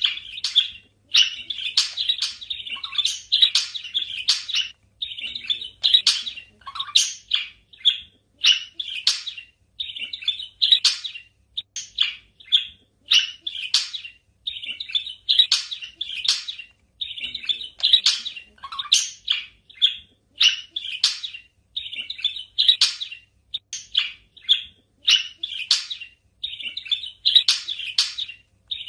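Budgerigars chirping and chattering in rapid, continuous phrases, broken by short pauses every second or two.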